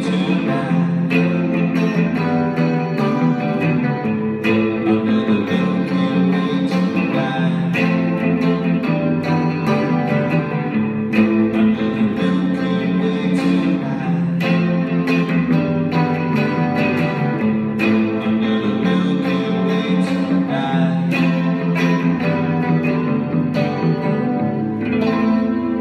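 Electric guitar and electric bass guitar playing a rock song together live through amplifiers, with strummed chords over a steady bass line.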